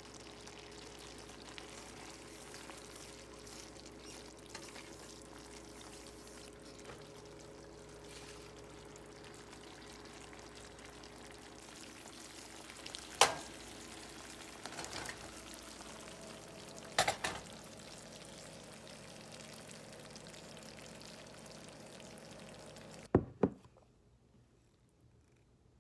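Creamy pasta sauce simmering and sizzling in a frying pan over a steady hum, with a utensil knocking sharply on the pan twice midway. Near the end come two quick sharp clicks.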